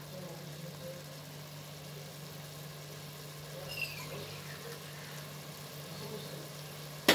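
A steady low mechanical hum, like a small motor running, over faint hiss, with a sharp click near the end.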